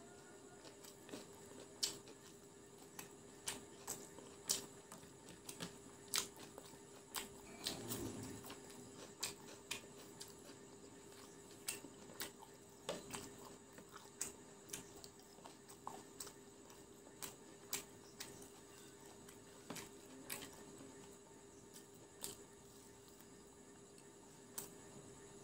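Close-up chewing of crispy fried chicken pakora: irregular sharp crunches and mouth clicks, about one or two a second, over a faint steady tone.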